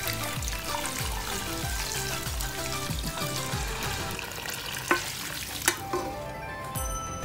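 Beef stock pouring into a hot pan of seared beef and sizzling as it hits. Two sharp knocks come a little past halfway, and the sizzle thins out soon after. Background music with a steady beat plays throughout.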